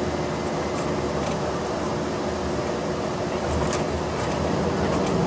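Steady running noise of a tour bus heard from inside the cabin, engine and road noise with a faint steady hum.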